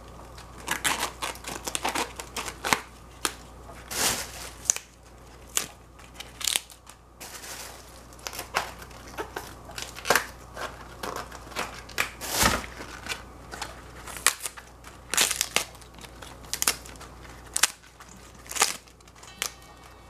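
Radicchio leaves being torn apart by hand: irregular crisp snaps and crackles, sometimes several in quick succession.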